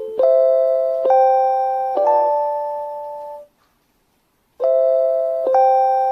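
JR Hokkaido station guidance chime for visually impaired passengers: electronic bell-like notes struck about once a second, each fading away. Three rising notes, then about a second of silence, then the phrase starts again with two notes and a lower one.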